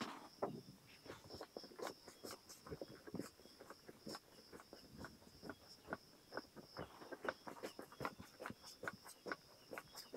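Faint insect sounds: a steady high-pitched trill throughout, with scattered short ticks and rustles.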